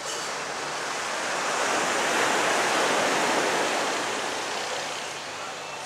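Surf breaking and washing up the beach: a rush of noise that swells to a peak about two to three seconds in, then fades away.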